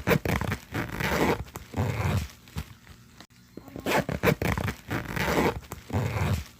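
A rasping, scraping sound like a zipper or tearing material, played twice in near-identical runs of a couple of seconds each, each a quick series of clicks and rasps.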